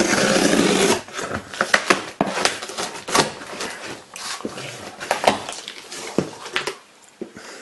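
Packing tape torn off a cardboard parcel, a dense tearing sound for about the first second, then crackling and rustling as the cardboard flaps are pulled open.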